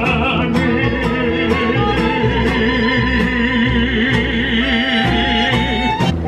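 Mariachi band playing, with violin and trumpet over strummed guitars and a low bass line. A long note is held with a wavering vibrato through most of it.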